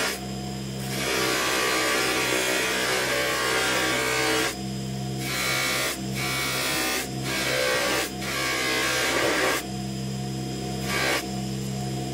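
Bench polishing motor running steadily with a spinning polishing wheel, as steel needle-nose pliers are pressed against it in spells to buff off rust, giving a rubbing noise over the motor hum that breaks off several times, leaving only the hum.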